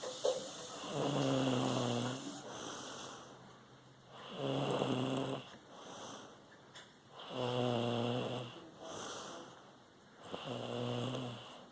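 Heavy snoring in a slow, regular rhythm: four loud, rattling, pitched snores about three seconds apart, with softer breaths between them.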